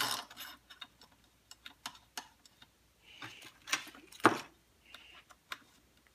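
Irregular small metallic clicks and taps of chainsaw parts being handled, as a toothed metal bumper spike and its screws are fitted against the crankcase. There is a sharper click at the start and another about four seconds in, with a couple of brief scrapes between.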